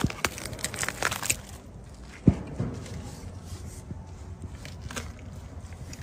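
An elephant's foot squashing a bunch of bananas, the peels crackling and squishing in a quick run of small crunches, with a single loud thump about two seconds in and a few fainter clicks afterwards.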